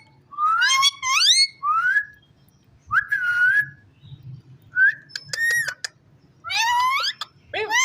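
Ringneck parakeet whistling in a string of short high phrases, many of them sliding upward in pitch, with short gaps between them.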